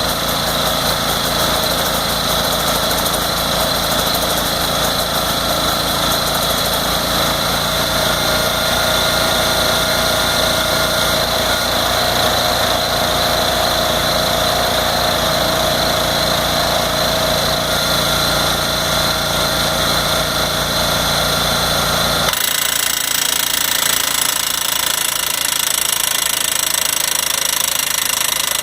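Terralift drainfield-fracturing machine running: its engine and pneumatic hammer going steadily as the probe is worked into the soil. About 22 seconds in, the deep rumble drops out suddenly, leaving a higher-pitched running sound.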